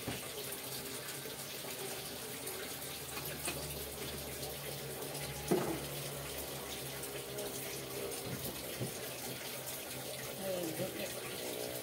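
Steady rushing background noise like running water, with a single sharp knock about five and a half seconds in and faint voices near the end.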